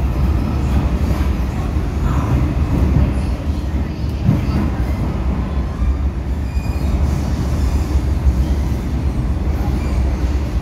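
Inside an MTR M-Train electric multiple unit car as it pulls out of the station: a loud, steady low rumble of wheels and running gear on the track, with a few faint high squeals in the middle.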